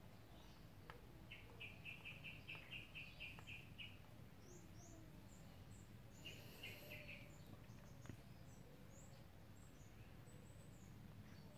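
Near silence with faint birds chirping: a quick run of about ten high chirps starting about a second in, a shorter run past the middle, and scattered thin, very high tweets.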